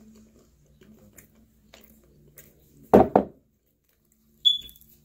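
A hot sauce bottle set down on a wooden board with a quick double knock about three seconds in, over a faint steady hum. Near the end comes a single short high-pitched beep.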